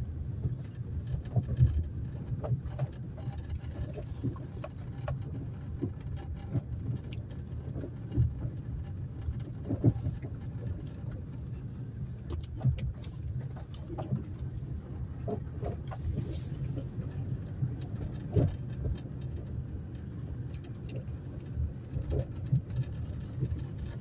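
Car driving along a dirt road, heard from inside: a steady low rumble of engine and road, with scattered short knocks and rattles throughout.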